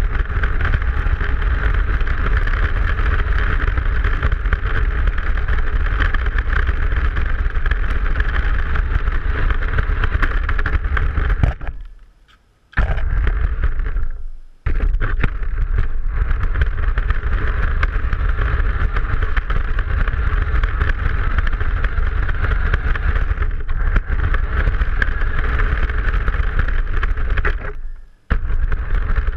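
Radio-controlled car running at speed, heard from a camera mounted on the car: a steady, loud motor-and-gear whine over the rumble of the tyres on paving stones. It dies away briefly about twelve seconds in, cuts out again shortly after, and once more near the end as the car stops, then starts up again each time.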